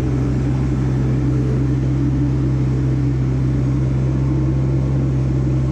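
Sunward mini excavator's diesel engine running at a steady note while its hydraulics lift and curl the tilt bucket.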